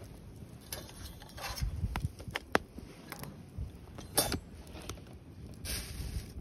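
Tableware and utensils being handled during a meal: scattered light clicks and knocks with short rustles, and a longer rustle near the end.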